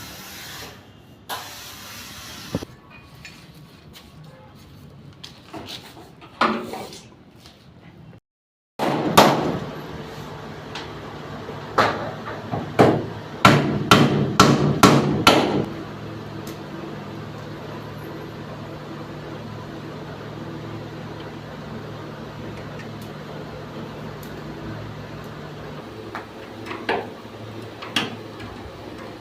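Knocking and tapping on washing machine parts during servicing: scattered sharp knocks, with a dense run of them in the middle, over a steady low hum.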